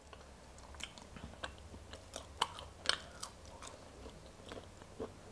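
A person quietly chewing boiled velvet bean (Mucuna) seeds, with small irregular mouth clicks about two or three times a second.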